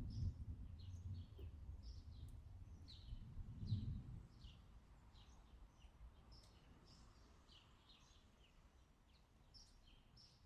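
Thunder rumbling low and fading away, with a last swell about four seconds in, under many short, high bird chirps repeated throughout.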